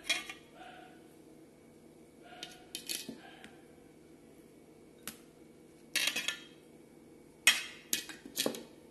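Short clinks and scrapes of hand and food against a steel plate during eating, in several brief bursts with quiet between them.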